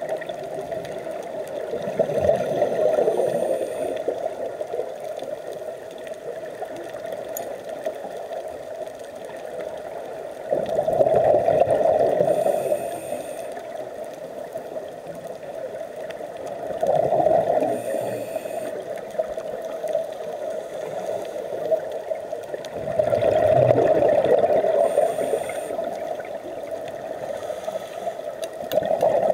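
Scuba diver breathing through a regulator underwater. A bubbling rush of exhaled air swells about every six seconds, five times, each followed by a brief thin hiss.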